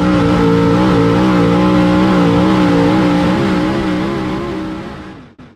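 Race car engine running hard at steady high revs, its pitch wavering slightly, fading out near the end.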